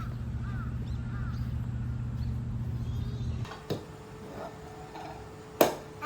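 A small motor hums steadily, with a repeating chirp early on, and cuts off abruptly about three and a half seconds in. A click follows, then a sharp knock near the end.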